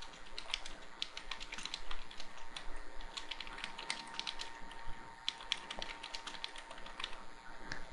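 Typing on a computer keyboard: a faint, quick, irregular run of key clicks as a sentence is typed.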